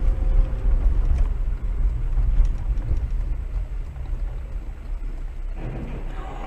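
Steady low rumble of a car driving slowly on a wet street, recorded by a dashcam inside the car.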